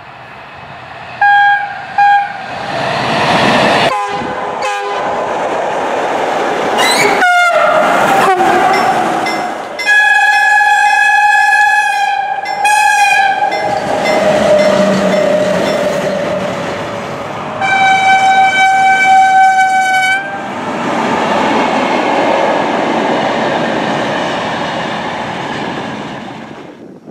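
Locomotive horns sounding again and again: two short blasts near the start, then long blasts, one of which drops in pitch. The rumble and rail clatter of passing trains fills the gaps, with a few abrupt breaks where clips are cut together.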